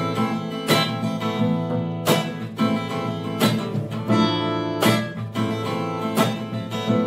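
Takamine acoustic guitar strummed in a steady rhythm, about three chord strokes every two seconds, the chords ringing on between strokes; an instrumental passage with no singing.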